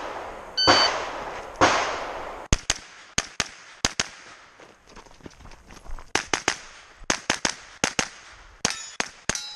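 Shot-timer start beep, then a CMMG pistol-caliber carbine firing a rapid string of about twenty shots, many in quick pairs, with a break of about two seconds in the middle.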